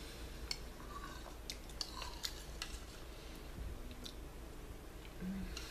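A person eating tortilla soup close to the microphone: chewing and wet mouth sounds, with scattered sharp clicks and smacks, most of them in the first half.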